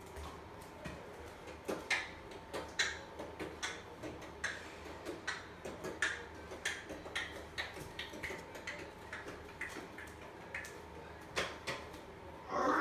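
Ping-pong ball bouncing, light sharp clicks at an uneven pace of roughly two a second.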